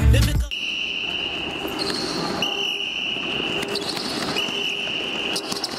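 Music cuts off about half a second in, leaving the sound of a gym in use: basketballs bouncing on the court floor amid the noise of the hall. A steady high-pitched tone sounds three times, each time for over a second.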